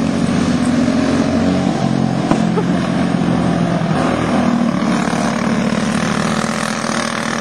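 Racing go-kart engines running together in a steady drone, their pitch shifting a little as the karts go round.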